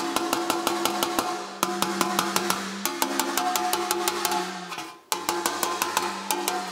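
Body hammer tapping a sheet-metal motorcycle fender against a dolly held behind it, about six quick ringing taps a second, to work low spots upward. The tapping dies away and stops briefly about five seconds in, then starts again.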